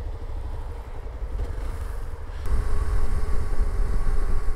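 Hero XPulse 200 single-cylinder motorcycle engine ticking over, then louder from about two and a half seconds in as the bike pulls away and gets under way, with low wind rumble building.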